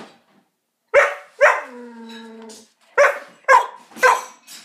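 Dog moaning and groaning: a short bark-like yelp about a second in, then another drawn out into a moan lasting about a second, then three more short yelps about half a second apart.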